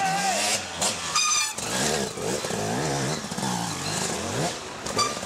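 Enduro dirt bike engine revving up and down over and over, its pitch rising and falling as the rider works the throttle.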